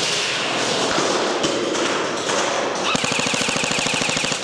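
Airsoft guns firing on full auto, a dense clatter of shots. About three seconds in, one fast, even burst runs at roughly twenty shots a second.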